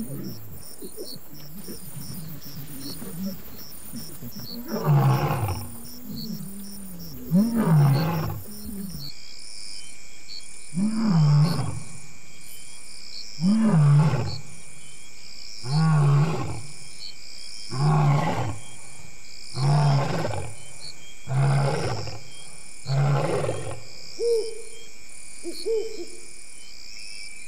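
A lion roaring in a bout: nine deep roars about two seconds apart, the first few longer and the later ones shorter, trailing off into two soft grunts near the end.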